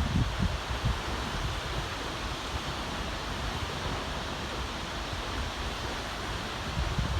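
Waterfall, falling water rushing steadily, with wind buffeting the microphone in the first second and again near the end.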